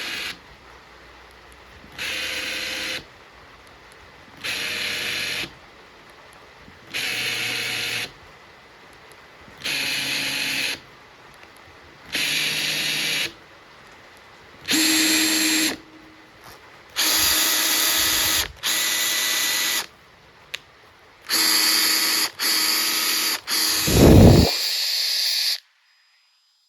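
Makita TP141D 18V cordless 4-mode impact driver run in short trigger pulls of about a second each, over and over, with longer, louder runs near the end and a strong low burst about three-quarters of the way through.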